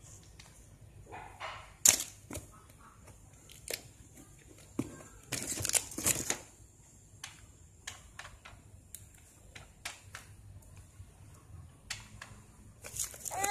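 Scattered taps and clicks with a short burst of crinkling about five seconds in, as a toddler handles a cardboard box and foil-wrapped packaging.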